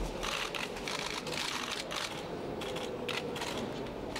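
Irregular bursts of rapid clicking and rustling, each a fraction of a second long.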